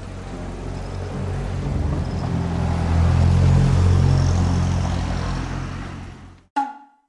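Road traffic: a car passing by, its engine hum and tyre noise swelling to a peak about three to four seconds in and then fading away. Near the end a short sharp sound with a brief ringing tone, then silence.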